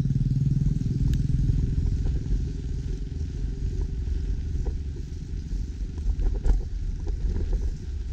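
A motorcycle running at low speed, a steady low engine rumble mixed with wind noise on the microphone, with a few light knocks and rattles over the cracked concrete. A louder engine tone fades away within the first second.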